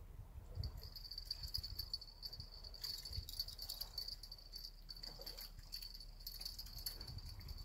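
Insects chirping in the dark: a steady, high, pulsing trill that starts about half a second in, over a faint low rumble.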